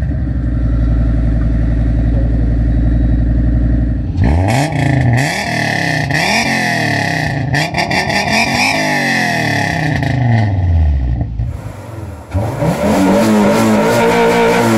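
Honda G-series inline-five engine idling steadily, then revved up and let fall back several times. After a brief drop about 12 seconds in, an engine runs loudly again with its pitch sweeping.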